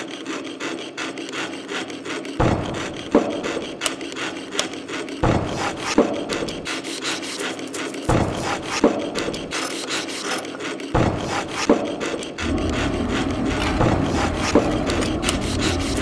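A run of short hand-tool sounds that changes abruptly several times: first a jeweler's saw cutting thin copper sheet against a wooden bench pin in quick rasping strokes, then other rubbing and scraping with sharp taps. Near the end a steadier, fuller noise takes over.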